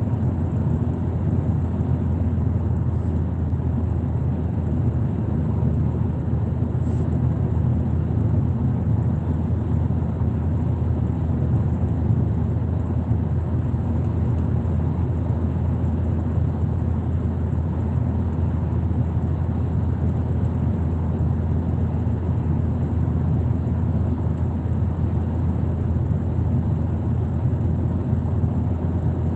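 Car driving through a road tunnel, heard from inside the cabin: a steady low rumble of tyres and engine.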